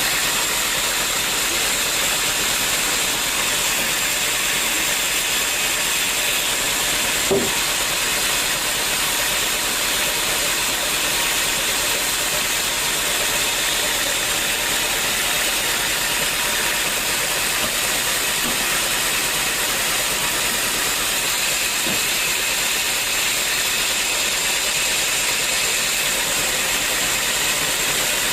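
Sawmill saw machine running steadily, a constant hiss of machinery, with a single short knock about seven seconds in.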